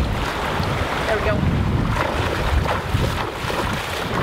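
Wind buffeting the microphone in gusts over the steady rush of a shallow, rocky stream.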